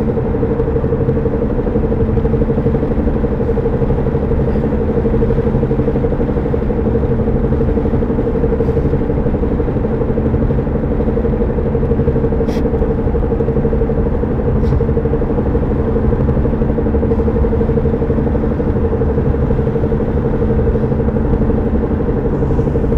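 Vehicle driving at a steady speed with a constant hum from the driver-side front wheel area. The owner cannot tell whether it comes from a bad tire or from the drivetrain.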